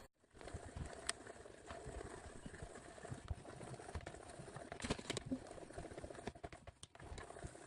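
Mixing tool stirring a thick shampoo, shaving-cream and salt slime mixture in a container: irregular soft taps and knocks of the tool against the container's sides.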